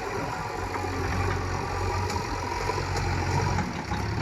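Diesel engine of a JCB digger running steadily at low speed, with a couple of faint clicks.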